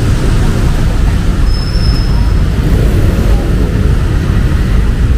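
Steady city street traffic in the rain: a continuous low rumble of vehicles over a hiss of rain. A short, thin, high-pitched whine sounds about a second and a half in.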